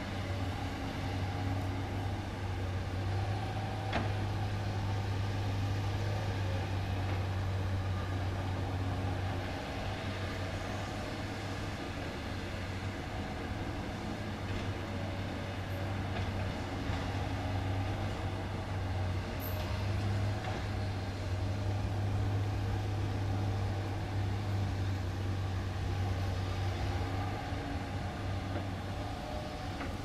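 Komatsu PC200 hydraulic excavator's diesel engine running with a steady low hum, swelling and easing over several seconds at a time as the machine digs and swings.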